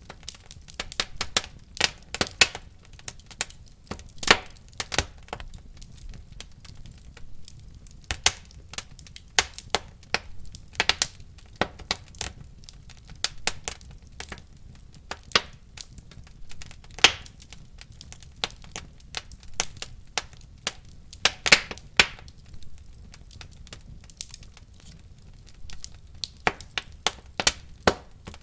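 Wood fire burning in a fireplace: irregular crackles and sharp pops over a low steady rumble of the flames.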